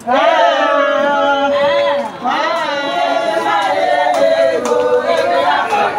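Group of women singing together, unaccompanied, several voices holding and sliding between long notes in a celebration song.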